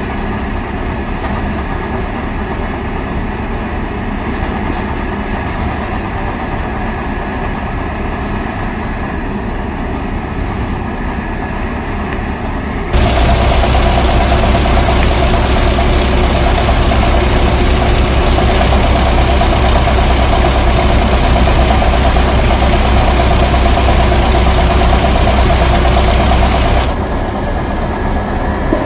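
Tractor-driven paddy threshing machine running steadily, the tractor's diesel engine and the spinning threshing drum together as paddy is fed in. The noise jumps up sharply in loudness a little under halfway through and drops back near the end.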